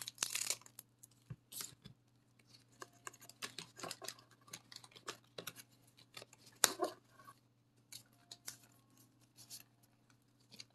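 Scissors snipping through the foil wrapper of a booster pack in the first half-second, followed by soft rustling and light clicks as the pack and cards are handled, with one sharp tap about seven seconds in.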